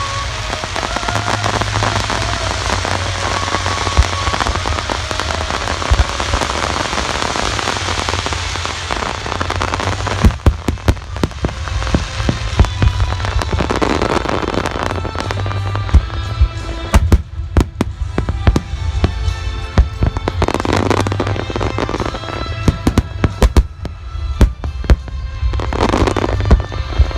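Large fireworks display of Nagaoka's Phoenix: a steady crackling rumble at first, then from about ten seconds in a rapid, dense run of sharp bangs and crackles. Music plays along underneath.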